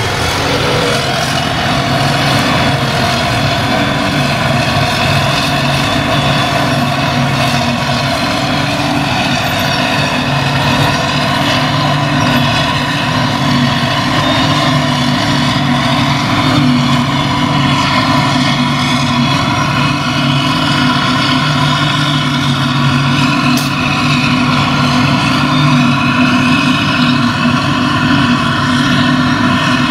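Claas Jaguar 950 self-propelled forage harvester running under load, chopping grass and blowing it into a loader wagon driven alongside by a tractor. The machinery hum is loud and steady, holding one pitch throughout.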